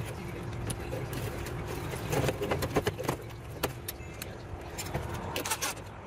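Light clicks and rattles of wire connectors and parts being handled inside a drinking fountain's metal cabinet, heaviest about two seconds in and again near the end, over a steady low rumble.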